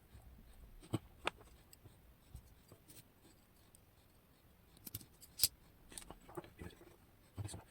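Light, scattered metallic clicks and taps of small lock parts and tools being handled while a West 955 pin-tumbler lock is taken apart, pins and springs coming out of the plug and housing. The clicks come singly, with a quick run of them about five seconds in.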